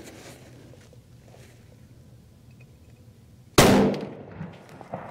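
A single shot from a Ruger .30-06 rifle about three and a half seconds in: one sudden loud crack that dies away over about a second.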